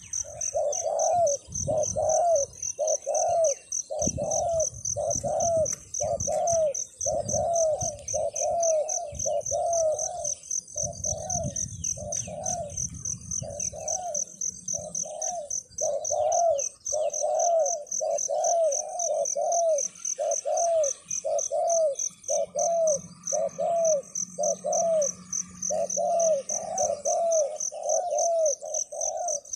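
A dove cooing continuously, a long string of short arched notes at about one and a half to two a second. A steady, fast-pulsing insect drone sounds high above it, with some low rumbles in the first half.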